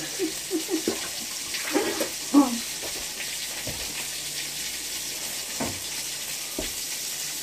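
Sausages sizzling in a frying pan: a steady hiss, with a few light knocks scattered through it.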